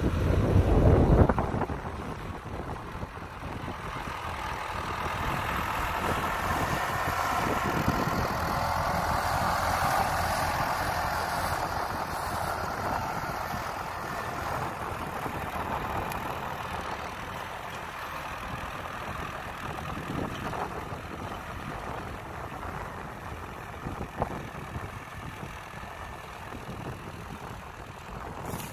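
Iseki 725 four-wheel-drive tractor's diesel engine running under load as it pulls a seven-disc plough through the soil. It grows louder as the tractor passes close, about ten seconds in, then fades as it moves away. Wind buffets the microphone briefly at the start.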